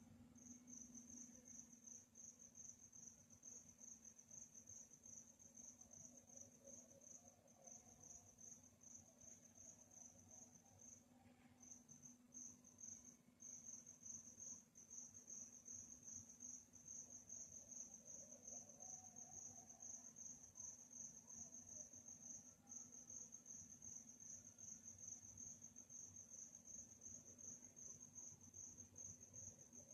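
Crickets chirping in a fast, even, high-pitched trill that breaks off briefly about eleven seconds in and resumes. A faint steady low hum runs underneath.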